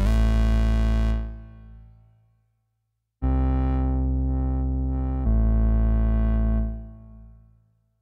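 Bass preset on the D16 Group LUSH-101 software synthesizer: a held bass note fades away over about a second and a half, then after a short silence another held bass sound comes in, swells about two seconds later, and fades out near the end.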